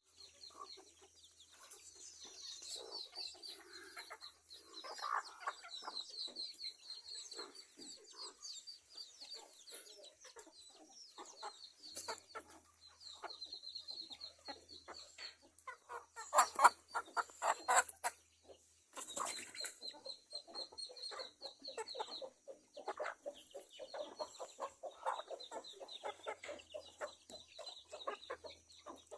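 Chickens clucking in short, irregular calls, louder a little past the middle, over a steady high-pitched chirring.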